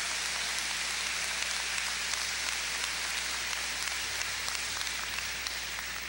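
Large audience applauding: a dense, even patter of many hands clapping, beginning to fade near the end.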